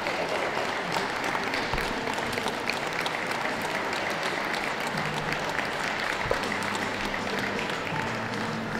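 Audience applauding steadily, many hands clapping together in a dense, even patter.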